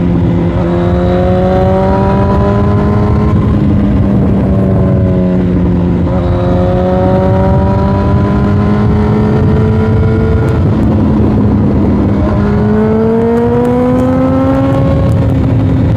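2006 Yamaha YZF-R1's inline-four engine pulling through the gears. The pitch climbs steadily and drops back at each upshift, about three times (near the start, around six seconds and around twelve seconds in), over heavy wind noise on the helmet microphone.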